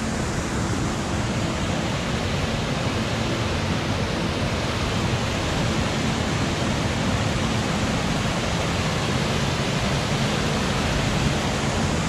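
Water pouring over a weir and churning through rapids below it: a steady, even rushing noise.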